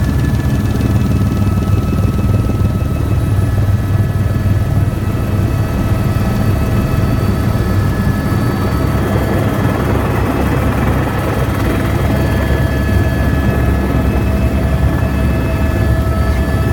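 Helicopter rotor and turbine heard from inside the cabin while it comes in to land: a loud, steady low beat with a thin, high whine over it.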